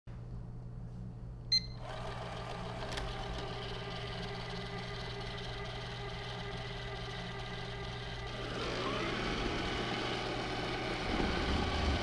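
Miele Scout RX1 robot vacuum giving a short electronic beep, then starting up and running with a steady motor whine. About eight and a half seconds in the sound changes, with a brief rising whine.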